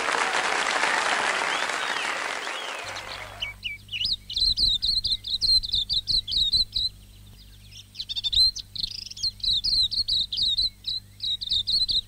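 Applause dies away over the first three seconds or so. Then a silvereye (tauhou) sings: fast runs of high, warbling chirps, broken by a short pause around seven seconds in, over a low steady hum.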